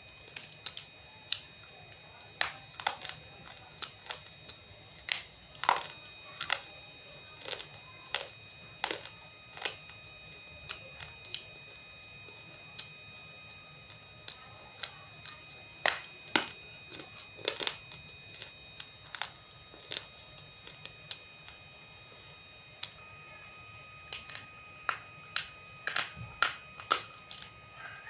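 Roasted multani mitti (fuller's earth clay) being crunched as it is eaten: sharp, irregular crisp cracks, sometimes several in quick succession, with short gaps between them.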